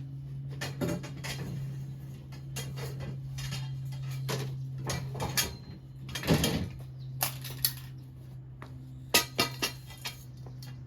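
Metal pieces being handled, with irregular clanks and clinks, some ringing briefly, over a steady low hum.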